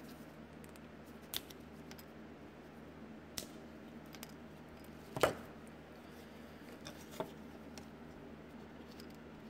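A hand-held cutter snipping styrene plastic strip into small pieces: a few sharp snips, the loudest about five seconds in, over a low steady room hum.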